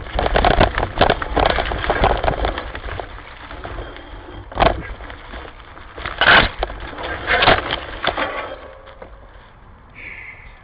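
A hiker's footsteps crunching and crackling through dry autumn leaves and brush, with twigs snapping, in irregular bursts that die down near the end.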